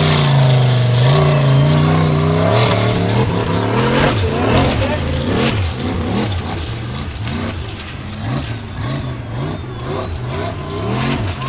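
Formula offroad buggy's engine revving hard as its paddle tyres spin up a steep dirt hill. It holds high revs at first, then after about three seconds the revs rise and fall rapidly in repeated bursts as the driver works the throttle.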